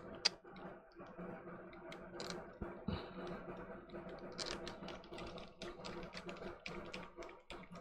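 Irregular small plastic clicks and taps from handling the opened DualSense controller's internal parts and housing, over a steady low hum.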